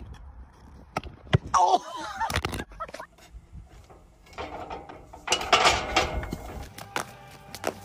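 Several sharp knocks and thuds with short bursts of voice between them, then a louder clattering burst mixed with voices about five and a half seconds in.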